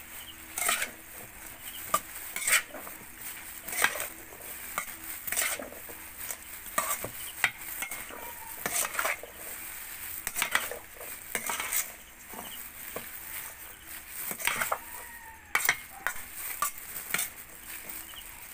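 A spoon tossing corn salad (sweet corn kernels and chopped vegetables dressed with olive oil) in a stainless steel bowl: wet rustling of the vegetables, with repeated scrapes and knocks of the spoon against the bowl, about one a second.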